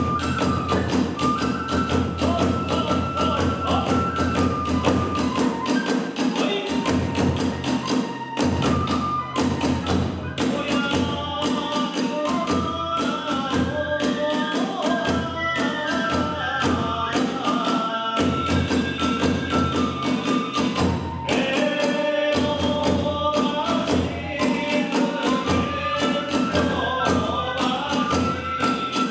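Kagura hayashi ensemble playing a fast, driving accompaniment: a bamboo flute carries a stepping melody over rapid drum strokes and clashing hand cymbals.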